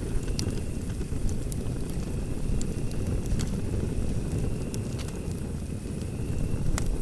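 Wood fire burning in a fireplace: a steady low rumble of the flames with sharp crackles and pops about once a second, and a faint thin whistle that comes and goes.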